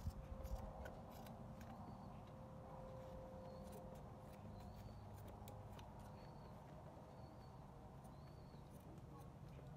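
Faint, scattered snips of small scissors cutting a wet pigeon's feathers. Short high chirps repeat about once a second underneath.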